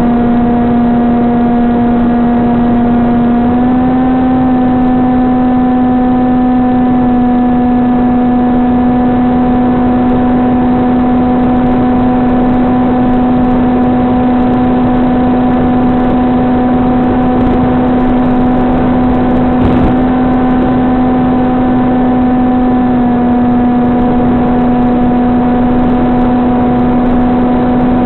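SunnySky 2212 2450KV brushless motor and APC 6x5.5 propeller droning steadily at cruise throttle, picked up by the plane's onboard FPV camera microphone. The pitch steps up slightly about three and a half seconds in and drops back a little later on.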